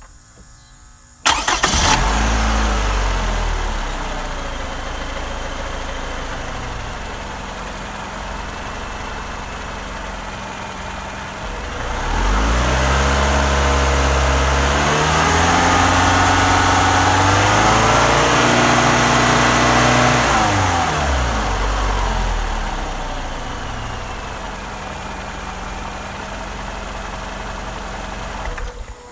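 Toyota 1AR-FE 2.7-litre inline-four engine starting about a second in, running at a high fast idle that settles into a steady idle. From about twelve seconds it is revved and held at raised revs for about eight seconds, climbing higher midway, then drops back to idle.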